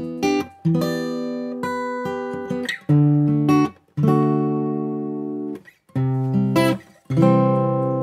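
Taylor 110 steel-string acoustic guitar played fingerstyle. Chords are picked and left to ring, and a few are stopped short by brief silences before the next chord.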